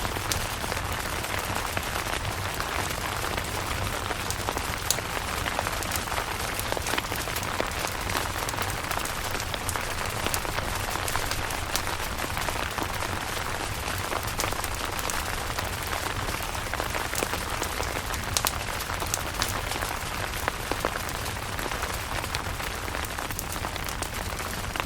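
Steady rain falling on a camping tent, a continuous hiss with many individual drops ticking sharply through it.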